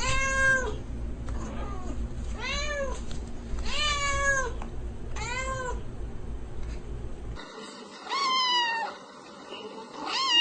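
A domestic cat meowing repeatedly, short rising-and-falling meows about every second and a half, over a low background hum. The hum stops suddenly about seven seconds in, and two more meows follow.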